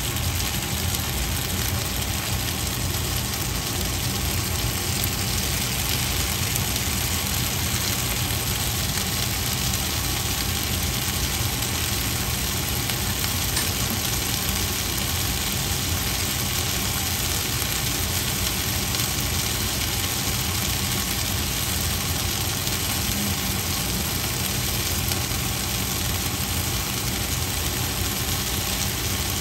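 Vegetables frying in a pan on the stove: a steady, unbroken sizzle with a low rumble underneath.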